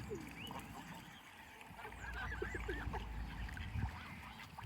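A flock of geese honking and calling, many short overlapping calls bunched together in the middle, as the birds crowd in to feed on thrown peas.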